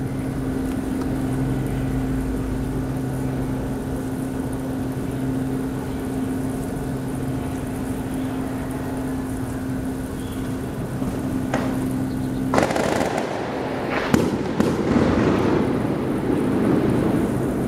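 A steady low hum for about the first twelve seconds, then a handful of loud, sharp explosive bangs, the firecrackers or gunshots of a favela morning. The last bangs are followed by a few seconds of crackling, rumbling echo.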